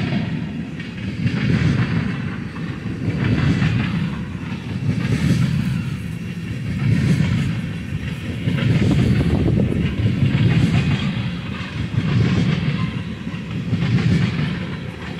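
Freight train of tank cars rolling past, the steel wheels running over the rail joints with a steady clickety-clack and low rumble that swells and fades about every two seconds as the cars go by.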